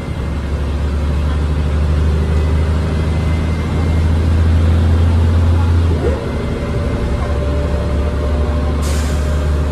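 MAN 12.220 bus's six-cylinder diesel engine heard from inside the cabin, pulling steadily under way. Its tone breaks and drops about six seconds in, as with a gear change, and there is a short hiss near the end.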